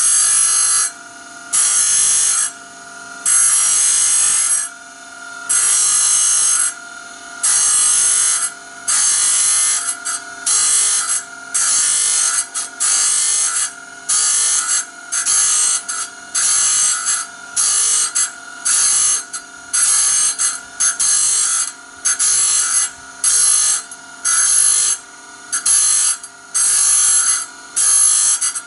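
A small power grinder (rotary tool) sharpening the teeth of a band saw blade. It runs steadily, with a short grinding burst roughly once a second as each tooth is touched up.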